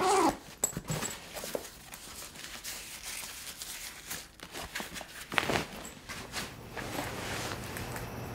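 A fabric bag being handled and packed: the cloth rustles and the straps and buckles knock in short irregular bursts, with one longer scraping stroke about five and a half seconds in.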